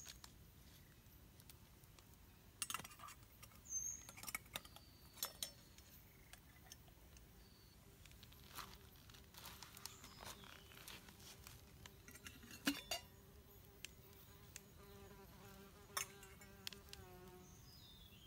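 Quiet jungle background with an insect buzzing faintly, steadier through the second half, and scattered small clicks and cracks. There are a couple of short high bird chirps.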